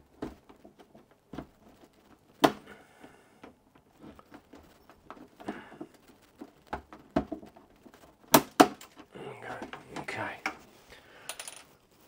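Plastic retaining clips of an all-in-one PC's back cover clicking and snapping loose as a plastic pry tool and plectrum are worked around the frame, with light scraping between. The sharpest clicks come about two and a half seconds in and twice in quick succession just past eight seconds.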